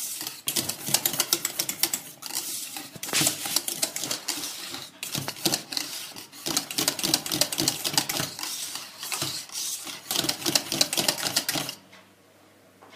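Metal balloon whisk beating thick pastry cream in a stainless steel saucepan: a fast, steady rattle of wires clicking against the pan, stopped near the end. The cream is being whisked without a pause as it cooks so that it does not catch on the bottom.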